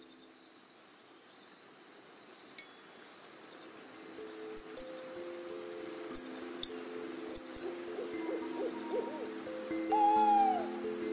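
Live electronic ciné-concert soundscape: soft sustained synth chords under a steady, high, cricket-like chirr. Three pairs of sharp clicks come in the middle, and near the end an owl hoot falls in pitch, matching the hooting owl on screen.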